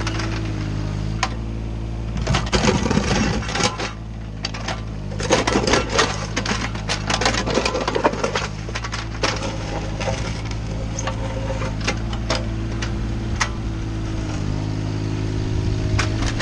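Mini excavator's diesel engine running steadily while its steel bucket scrapes and drags gravel across a dirt road, stones clicking and rattling against the metal. The scraping comes in two busy stretches, about two seconds in and again from about five to eight seconds, with scattered clicks after.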